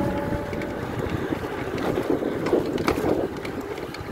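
Wind rushing over a chest-mounted microphone on a moving e-bike, with tyre noise on the road. The brushless front hub motor's faint steady whine fades out within the first second, and the wind noise swells about two to three seconds in.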